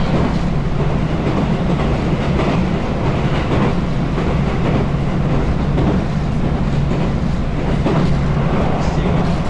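Running noise of a JR West 221 series electric train at speed, heard from inside the carriage: a steady rumble and low motor hum, with wheels clicking over rail joints.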